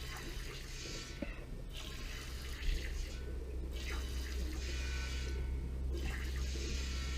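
Cow being milked: a rhythmic, watery hiss repeating about every two seconds over a steady low hum.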